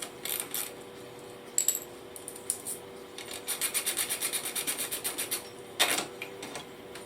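Ratchet wrench undoing the lower rear shock bolt: scattered metal clinks, then a fast run of ratchet clicks, about eight a second, for roughly two seconds in the middle, and one sharp clack near the end.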